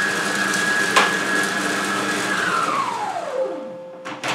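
Monsieur Cuisine Connect kitchen machine chopping basil leaves in its mixing bowl at speed 5: the motor runs with a steady whine, then winds down with a falling pitch about two and a half seconds in and stops. A few sharp clicks near the end as the lid is taken off.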